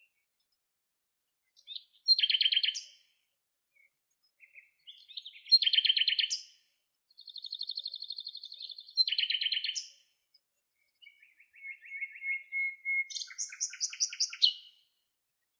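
Songbirds singing: a few short, high-pitched trilled phrases, each about a second or more long, with complete silence between them.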